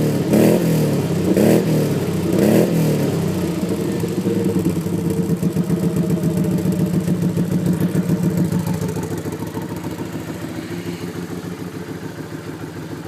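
2010 Can-Am Outlander 500 ATV's V-twin engine through an aftermarket HMF exhaust, revved in three quick blips in the first few seconds, then idling steadily and growing quieter near the end.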